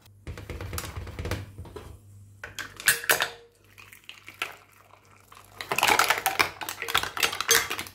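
Cooked mussels and their cooking liquid poured from a stainless steel pot into a glass bowl: liquid splashing and shells clinking against each other and the glass. A few scattered clinks come first, then a dense run of clattering shells over the last two seconds or so.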